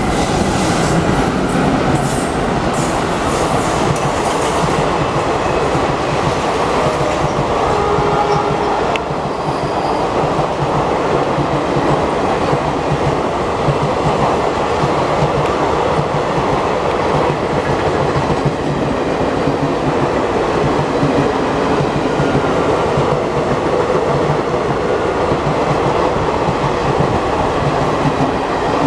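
Express train hauled by WDM-3A diesel locomotives passing at speed. The locomotive goes by at the start with sharp clicks and rattles, then a long string of passenger coaches follows, their wheels clacking steadily over the rail joints.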